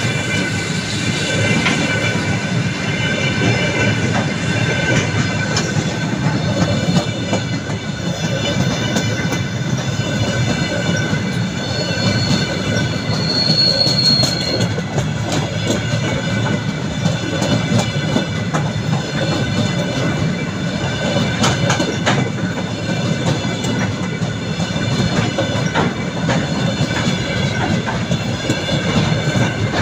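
Train of empty flat wagons rolling past close by: steady rumble and clatter of wheels over rail joints, with high ringing squeal from the wheels and a brief sharper squeal about halfway through.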